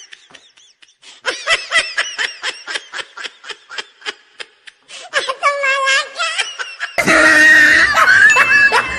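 A person laughing in rapid, high-pitched giggles. About seven seconds in, a sudden loud burst of laughter and shrieking voices.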